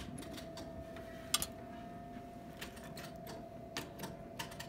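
Irregular light clicks and ticks from an old coin-operated record jukebox being pressed and handled, over a steady faint hum. No music comes out: the jukebox is not playing.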